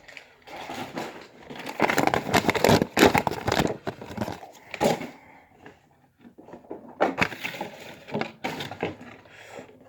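Toy packaging being handled: plastic and cardboard crinkling, crackling and scraping in two spells, the second starting about seven seconds in.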